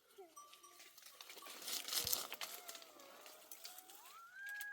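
Goat bleating: a long drawn-out call that wavers, then rises to a high held note in the last second or so, over light scattered clicks and rustling.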